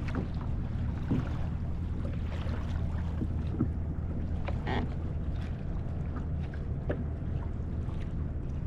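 Wind rumbling on the microphone and small waves lapping against a plastic kayak hull, with a few light knocks here and there.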